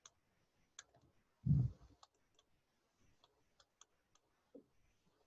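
Scattered light clicks, irregular and a few a second at most, with a brief low voice-like sound about a second and a half in.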